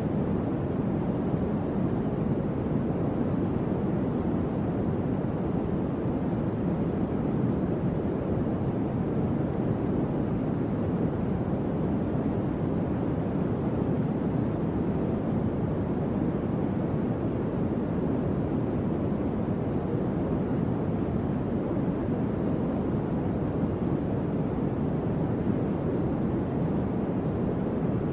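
Electric fan running steadily: an even, low airy whoosh with no change in pitch or level.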